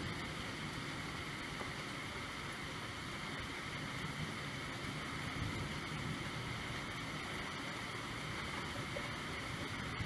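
Steady falling rain, an even, unbroken wash of noise.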